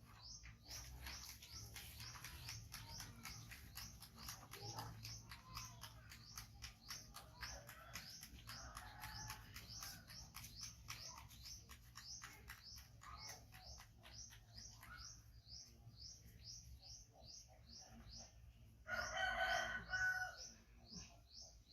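Birds calling: a steady run of short, high chirps, several a second, and near the end one louder call lasting about two seconds.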